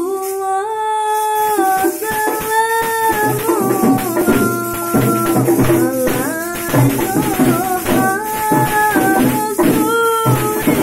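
Music: a singing voice carrying a melody over steady drum and jingling percussion strokes.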